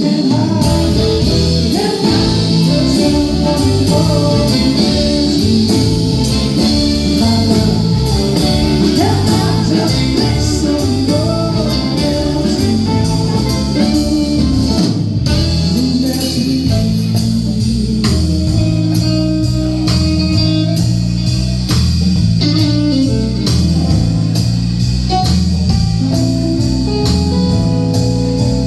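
Live band playing a blues number: guitar and bass over a steady drum beat, with a singer.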